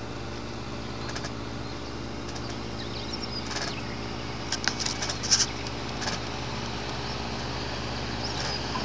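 Steady low motor hum with a clear pitch, like an engine running at an even speed, and a cluster of short high-pitched clicks about halfway through.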